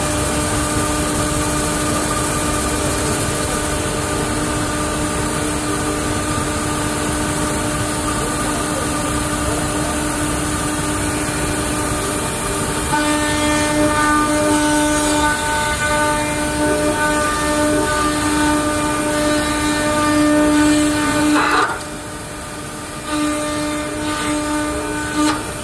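CNC band saw running, its narrow blade cutting a stepped profile into a wooden board: a steady machine noise with a constant hum. About halfway through, a higher whine with several tones joins in. Near the end there is a brief swish and the sound drops a little quieter.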